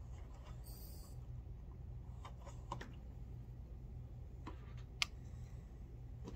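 Reloading bench handling noises: a brief hiss of powder pouring from the powder measure about a second in, then light clicks and taps, and a sharp metallic click about five seconds in as the metal scale pan is set down on the digital powder scale, over a steady low hum.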